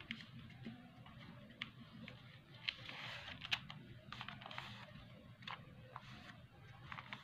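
A sheet of paper rustling and crackling in the hands as it is creased and folded into a paper airplane, with irregular small crinkles and clicks, the sharpest a little before and after the middle.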